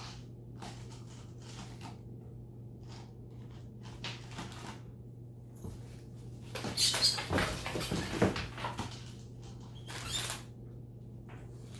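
Two pet monkeys squabbling and calling out in a short fight, loudest from about six and a half to nine seconds in, with another brief outburst near ten seconds. Before it, only small scattered clicks and rustles over a steady low hum.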